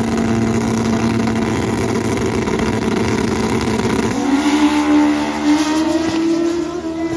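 Two drag-racing motorcycles held at steady high revs on the starting line, then launching about four seconds in, the engine pitch climbing as they accelerate away down the track.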